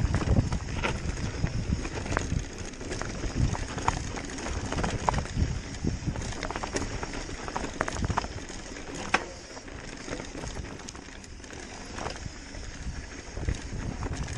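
Mountain bike rolling downhill over loose gravel and rock: tyres crunching and the bike rattling, with many irregular knocks and clicks over a low rumble.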